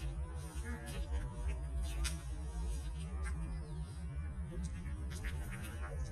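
A goat nibbling and licking food from a person's palm, heard as a few short sharp smacks and clicks over a steady low hum.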